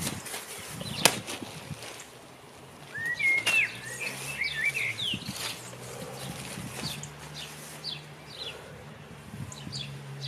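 Outdoor birdsong, with birds chirping repeatedly, mixed with rustling of the plastic tarpaulin under moving bodies. A single sharp smack about a second in, as the thrown partner lands on the tarp.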